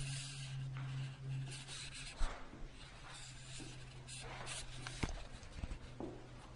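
A faint, steady low drone, which the recording team takes for the engines of a WWII aircraft, possibly a B-17. Over it come rustling and rubbing handling noises, a thump about two seconds in and a sharp click about five seconds in.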